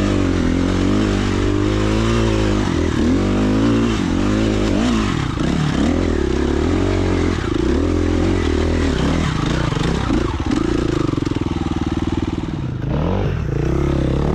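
Dirt bike engine running, its revs rising and falling, with a short drop in revs near the end before it picks up again.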